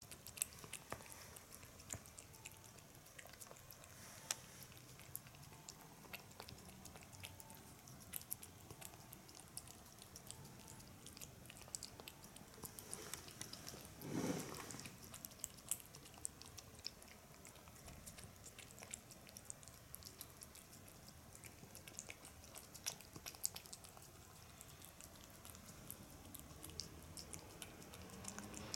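A cat eating flaked tuna from a plate: faint, quick licking and chewing clicks throughout, with one louder, longer noise about halfway through.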